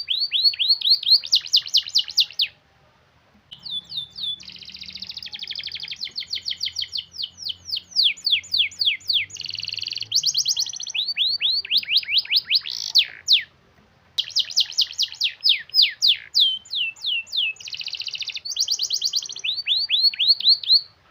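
Domestic canary singing a long song of tight, fast rolls and trills, with runs of quickly repeated falling notes. The song breaks off briefly twice, about 2.5 seconds in and again about 13.5 seconds in.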